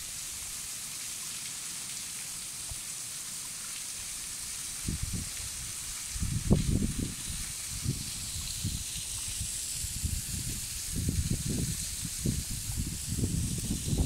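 Thin waterfall streams falling down a basalt cliff and spattering onto rock and a pool in a steady hiss. Low irregular rumbles join from about five seconds in, strongest near the middle and towards the end.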